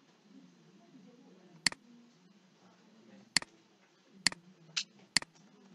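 Computer mouse clicking: four sharp single clicks roughly a second apart, with a softer tick between the last two, over a faint low room hum.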